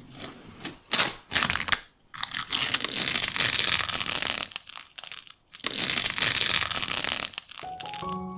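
Loud crinkling, crackling noise: a few short crackles, then two long stretches of it separated by brief gaps. Soft piano music begins near the end.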